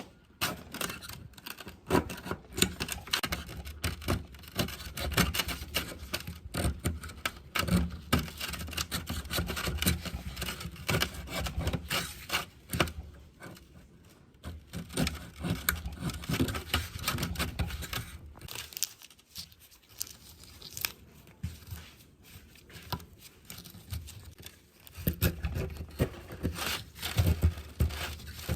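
Hand work on speaker parts: irregular scraping and tearing with many light knocks and clicks, easing off briefly twice in the latter half.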